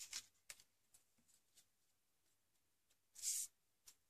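Near silence with faint paper handling: soft rustles and light taps, then about three seconds in a single short brushing sound as a paper strip is slid and pressed down onto cardstock.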